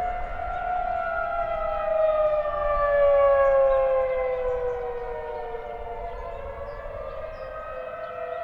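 Outdoor civil defense warning siren sounding during a test, heard from a distance: several tones at once, swelling louder about three seconds in and then fading, with the main tone gliding slowly down and another tone rising near the end.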